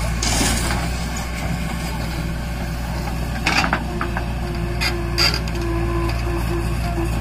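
JCB 3DX backhoe loader digging sandy soil, its diesel engine running steadily underneath. Soil pours out of the bucket into a trolley in the first second, and the bucket scrapes and clanks in the dirt a few times in the second half, with a thin whine coming and going.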